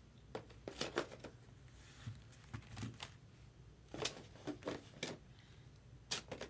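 Trading cards being handled and sorted: a scatter of faint, irregular clicks and light slides as cards are flipped and set down.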